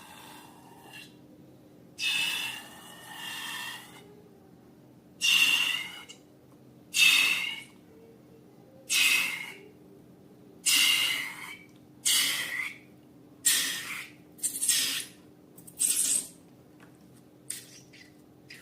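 Slime being squeezed and kneaded by hand, giving wet, squeaky squelches as trapped air is forced out. There are about ten of them, roughly one every second or so.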